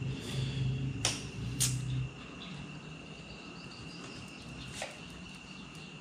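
Night insects trilling in one steady high tone, with a low hum over the first two seconds and a few sharp clicks: two close together about a second in, one more near five seconds.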